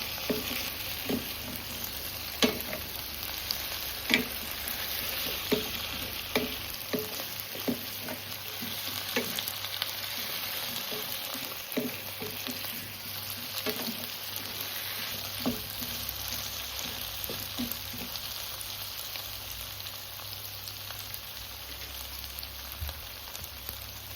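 Potatoes and carrots frying in oil with shallots and onion in a non-stick pan, sizzling steadily. A spatula knocks and scrapes against the pan about once a second while stirring, and the knocks stop a little past halfway.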